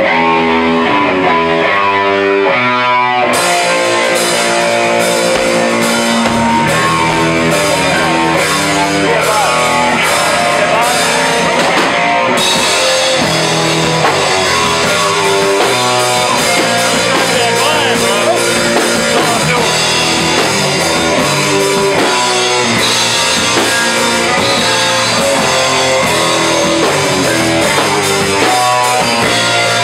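Loud live rock band: an electric guitar riff alone at first, with the drums coming in about three seconds in and the cymbals ringing steadily from about twelve seconds in.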